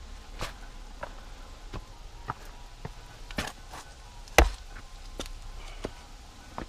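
A hiker's footsteps on a trail, a sharp step or knock roughly every half second to second, with one much louder knock about four seconds in.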